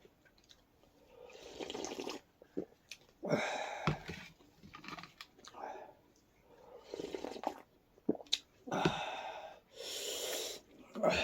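Someone eating hot, spicy thukpa noodle soup: a series of slurps and sharp breaths in and out through the mouth, one every second or two, as the chilli heat makes her eyes water.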